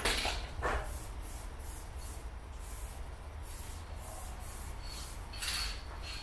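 Aerosol spray paint can hissing in short bursts as paint goes onto a concrete wall, with stronger bursts right at the start, just under a second in and about five and a half seconds in.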